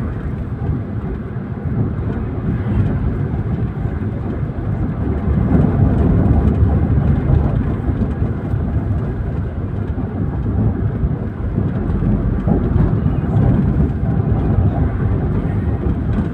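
Toyota Avanza 1.3 four-cylinder car being driven: a steady low rumble of engine, tyre and wind noise, swelling a little louder about five seconds in.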